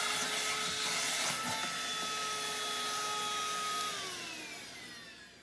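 Cordless handheld vacuum running steadily, a motor whine over a rush of air, then winding down about four seconds in, the whine falling in pitch and fading as the motor spins down.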